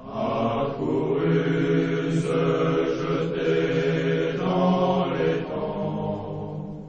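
A large group of voices singing a French military song together, one sung phrase that fades out near the end.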